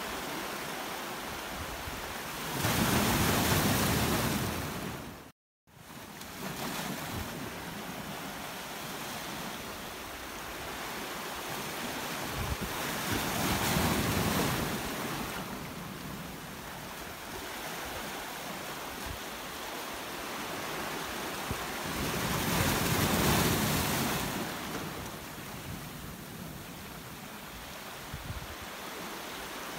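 Sea waves surging and breaking against a boulder seawall, with three louder surges about ten seconds apart over a steady wash of surf. The sound cuts out completely for a moment about five seconds in.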